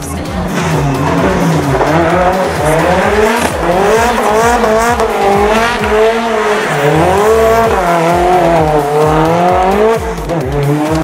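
Competition Lancia Delta's engine revving hard, its pitch swinging up and down about once a second as the car is driven hard.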